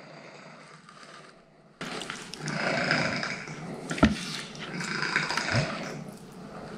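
A cat making a low, rough, drawn-out vocal sound that starts suddenly about two seconds in. A sharp knock of a knife on the plastic cutting board comes about four seconds in.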